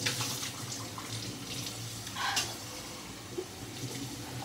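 Running water, a steady rush like a tap left running.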